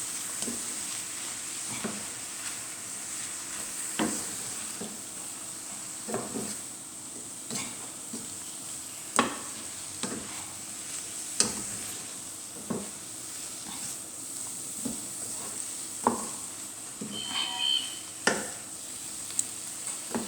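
Cabbage and mushrooms sizzling gently in a wide pan while a spoon stirs them. The spoon knocks and scrapes against the pan irregularly, every second or two.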